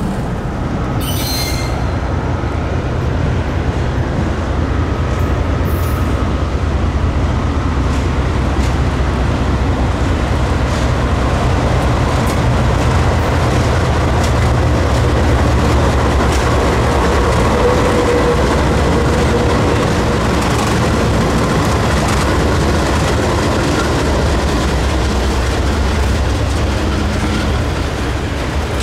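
CSX freight train rolling slowly past at close range: diesel locomotive rumbling, then loaded cars with wheels on rail, and a short wheel squeal about two-thirds of the way through.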